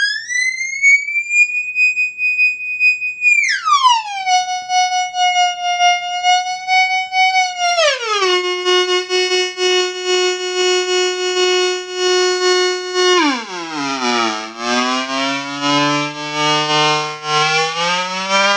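Noisekick FX Unreachable Void noise-machine pedal (noise generator, distortion, dual tremolo, reverb) putting out a siren-like electronic tone with overtones as its knobs are turned. The pitch glides up and holds, then drops three times, at about four, eight and thirteen seconds in, the last drop turning it into a low buzz with hiss above that creeps back up near the end.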